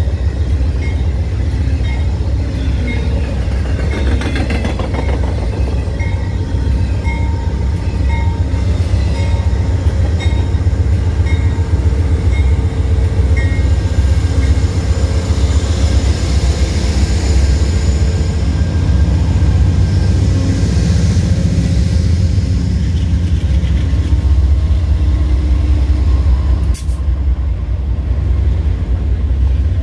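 Amtrak train passing close by: a loud, steady low rumble of the diesel locomotive and wheels on the rails, with a faint regular ticking through the first half and a sharp click near the end.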